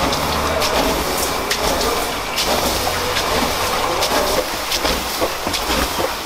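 Water splashed by hand from a bowl onto the hot clay walls of a tandoor oven, hissing and crackling as it turns to steam, with many short crackles over a steady low rumble.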